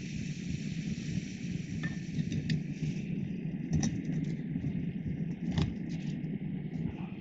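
Jetboil gas stove burner running with a steady hiss, lit to boil water. A few light clinks and knocks as the cooking cup is fitted onto the burner.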